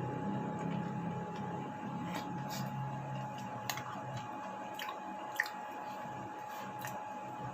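A person chewing food, with scattered short clicks and smacks of the mouth.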